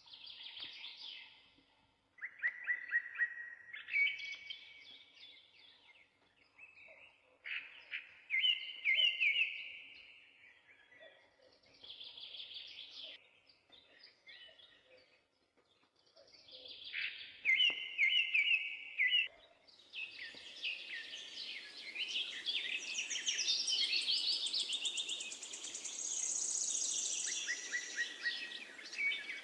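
Songbirds singing in short trilled phrases with pauses between them, turning into several birds singing over one another for the last third.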